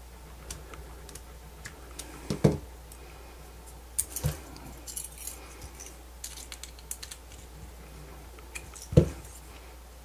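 Scattered small clicks and taps as a screwdriver works a small screw and thin copper wire is handled on a 3D-printed plastic battery adapter. There are a few louder knocks about two and a half, four and nine seconds in.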